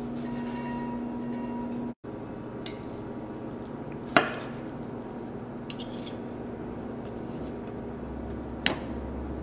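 Knife and fork cutting a grilled chicken breast on a wooden cutting board, the blade knocking the board a few times, loudest about four seconds in. A steady low hum runs under the first two seconds.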